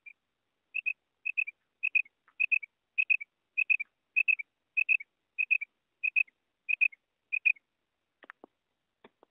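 Female common quail calling: a steady series of about a dozen high, paired notes, a little under two pairs a second, followed by a couple of faint clicks near the end.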